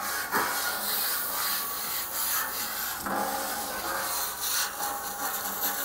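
Chain mail scrubber being swirled and rubbed across a hot, wet steel griddle top, a steady rasping scrub, while the water on the hot steel steams.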